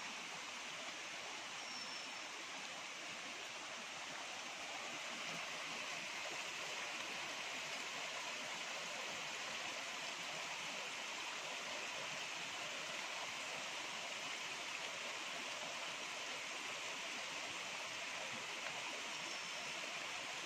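Muddy river water rushing steadily past.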